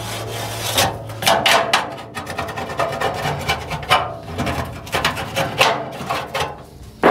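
A handheld scraper scraping caked grease and gunk from the inside of a Weber SmokeFire pellet grill, in repeated irregular scraping strokes.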